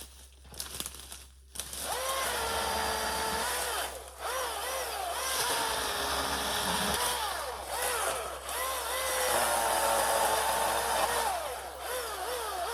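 Battery-powered electric chainsaw whining in repeated bursts, starting about a second and a half in after a few light handling clicks. Its pitch sweeps down and back up again and again as it runs.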